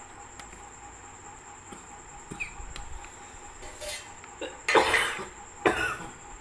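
A man coughing: a shorter cough, then two loud coughs a little under a second apart near the end.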